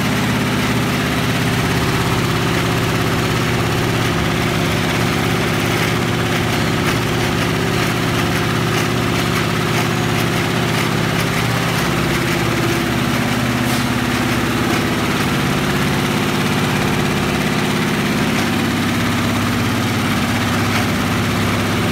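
Aura high-speed multi-head Aari embroidery machine running at 1200 rpm, its needles stitching zari thread into net fabric: a loud, steady mechanical hum with a fast, even needle clatter.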